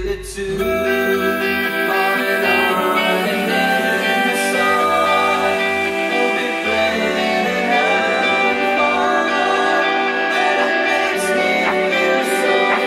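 Background music with plucked guitar.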